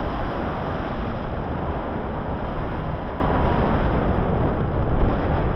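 Steady rushing wind noise on the microphone, jumping louder a little over three seconds in.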